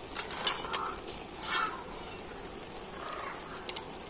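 Cashew nuts dropped by hand from a steel plate onto rice in an aluminium pot: a scatter of light clicks and soft rustles, the busiest in the first two seconds, with a few more clicks near the end.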